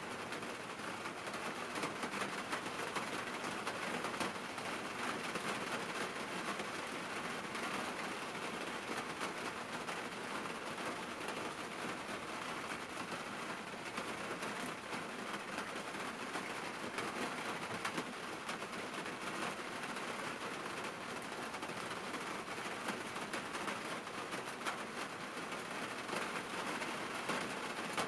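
Rain falling on a car, heard from inside the cabin: a steady patter of many small drop hits on the windshield and bodywork.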